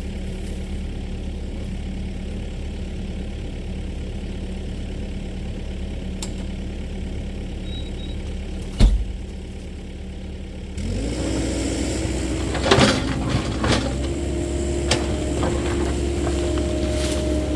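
Caterpillar 308E2 mini excavator's diesel engine idling. A single sharp knock comes about nine seconds in. About eleven seconds in the engine speeds up with a steady whine, and a run of knocks and cracks follows as the machine works.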